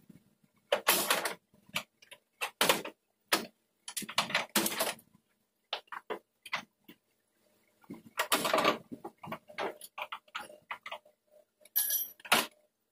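Irregular clicks, taps and knocks of the front grille's plastic clips and fasteners being undone and the grille worked loose by hand on a 2023 Chevrolet Silverado, with a denser run of knocks and rattles about eight seconds in.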